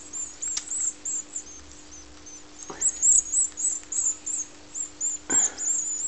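Nestling European goldfinches begging for food: many short, high-pitched cheeps, one after another.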